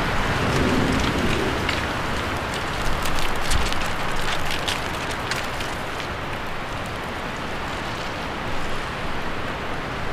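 Steady rushing outdoor noise with a scattered run of short crackles a couple of seconds in.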